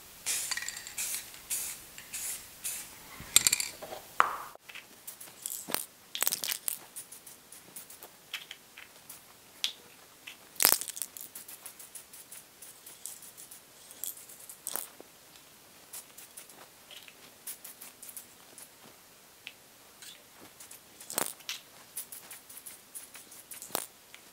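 Aerosol spray can of clear coat hissing in short bursts, dense in the first few seconds, along with scattered clicks and clinks as small plastic model-car parts are handled and set down.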